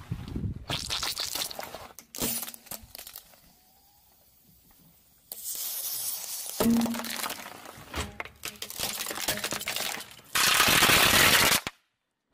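A car tyre rolls over and crushes things on asphalt: first a soft toy ball, then a row of plastic disposable lighters that crack and snap, with one sharp crack about six and a half seconds in. Near the end a loud steady hiss lasts just over a second, like gas escaping from the crushed lighters.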